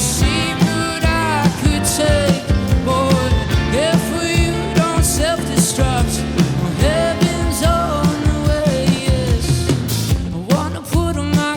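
Live rock band playing at full volume: drums, bass and guitars, with a bending lead melody line over the top.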